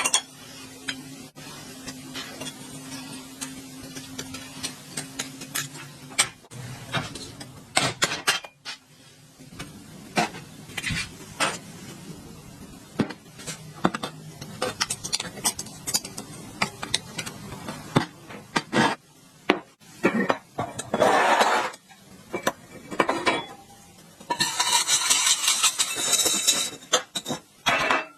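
Metal parts and hand tools clinking and knocking on a workbench, as a pump motor is worked on by hand. A steady low hum runs for the first several seconds, and there are longer stretches of scraping or rubbing near the end.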